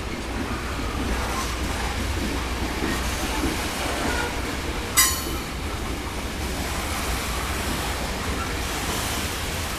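Passenger cars of a heritage train rolling past on the rails, a steady rumble of wheels on track, with one sharp clank about five seconds in.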